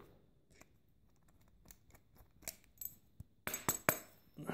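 Scattered small metal clicks and taps of a tool working on a stainless steel padlock while its locking pin is taken out, with a cluster of sharper clicks near the end.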